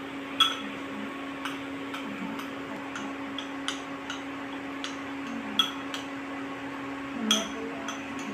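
Spoon clinking against a small ceramic bowl while stirring a flour-and-water slurry: irregular light ticks about every half second, with louder clinks just after the start, past the middle and near the end.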